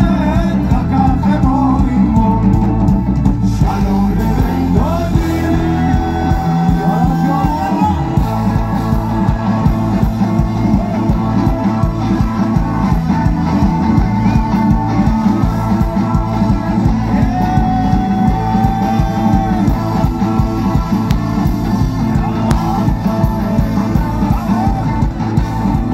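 Live rock band music: an instrumental stretch of the song with a steady beat, a full low end and long held melody notes twice.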